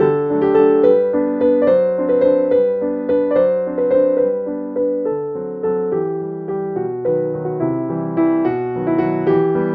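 Background piano music: a steady run of plucked-sounding notes that die away after each strike.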